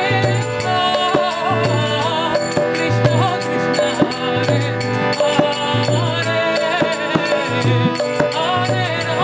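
Kirtan: a woman sings with vibrato over the sustained chords of a Bina harmonium. Mridanga drum strokes and karatala hand cymbals keep a steady rhythm.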